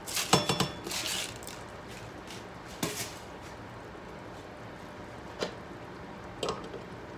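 Stainless steel pots and glass pot lids clinking and knocking, a quick run of clinks at the start with one brief metallic ring, then three single knocks spaced out, over a steady low hiss.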